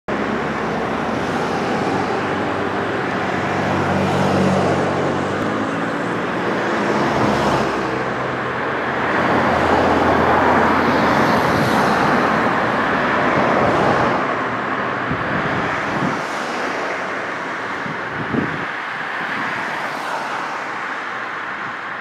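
Road traffic going by: tyre and engine noise that swells and fades as vehicles pass, with an engine's low hum a few seconds in. A single short knock about eighteen seconds in.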